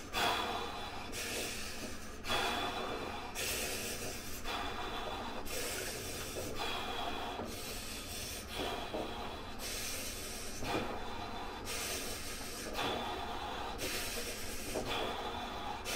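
A man's heavy, rhythmic breathing, forceful breaths about once a second, as he sits numb and shivering in an ice bath.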